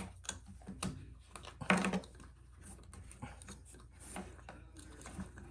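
Scattered small clicks and knocks of plastic being handled as the washing machine's drain filter is worked loose, with one louder cluster of clatter a little under two seconds in.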